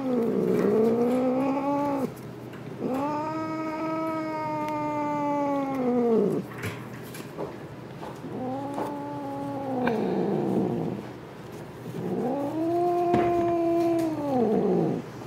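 A cat yowling at being handled: four long drawn-out calls of two to three seconds each, every one rising and then falling in pitch.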